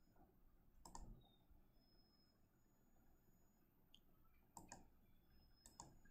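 Near silence broken by a handful of faint computer mouse clicks: one about a second in, then several more between about four and six seconds.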